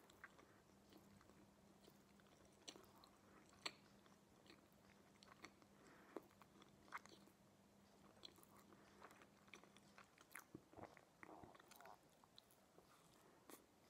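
Faint close-up chewing of a slice of stuffed pizza: soft mouth clicks and smacks, with another bite taken near the end. A faint steady hum underneath stops about ten seconds in.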